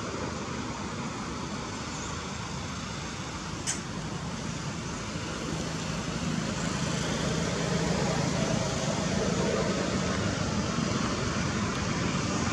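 Steady outdoor background rumble and hiss, growing louder from about six seconds in, with one sharp click about four seconds in.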